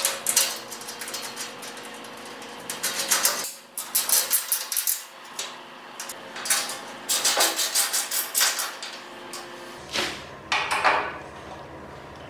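Metal clinking and rattling of a hand wrench and bolts against a steel welding cart's frame and perforated panel as the bolts are fastened, in several quick clusters of rapid clicks with short pauses between them.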